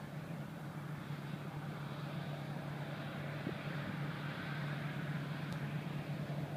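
Distant Boeing 737 business jet's CFM56 turbofan engines running as the jet rolls down the runway: a steady low rumble under a broad roar that grows slightly louder.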